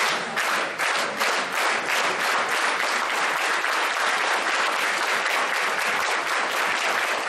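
A crowd clapping together in a fast, even rhythm of about four claps a second, dense like applause.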